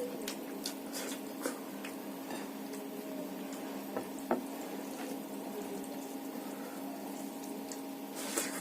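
Wet eating sounds of rice and fish curry being mixed by hand and chewed, with scattered small clicks, over a steady hum.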